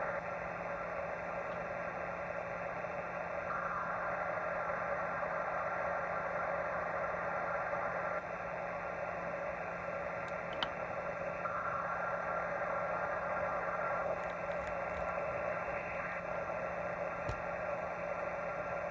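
Shortwave amateur radio receiver audio: band hiss through the receiver's narrow passband with several faint steady tones, as an unidentified signal swells in as a brighter rushing noise twice, for a few seconds each time. A low steady hum underlies it, and there is one sharp click about ten seconds in.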